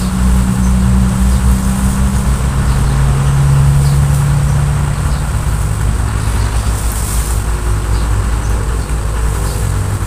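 A motor vehicle's engine running, its hum dropping in pitch two to three seconds in and fading after about five seconds, over a steady low rumble.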